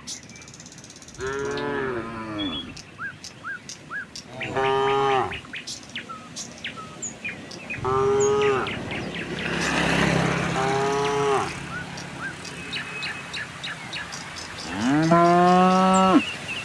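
Cows mooing: five drawn-out calls about a second each, the last one the loudest. Small birds chirp faintly between the calls.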